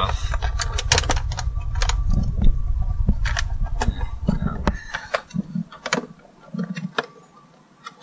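Sharp clicks, taps and small rattles of a screwdriver and screws working on the plastic interior door panel of a 1999 Toyota Sienna. A low rumble sits under the clicks and stops about halfway through.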